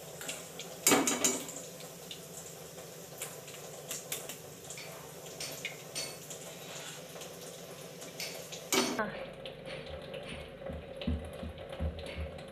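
Steel spoon scraping and clinking against a steel kadhai and a mesh strainer as fried boondi is scooped out of the oil, with sharp clinks about a second in and again near the end. After a cut near the end, faint regular low thumps begin.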